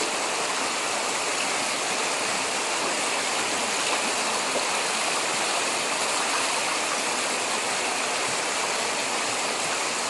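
Shallow stream rushing over rocks: a steady, even rush of running water.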